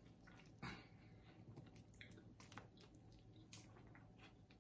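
Near silence with a few faint, wet clicks and smacks of eating: a sauced chicken wing being pulled apart by hand and chewed. The clearest click comes under a second in.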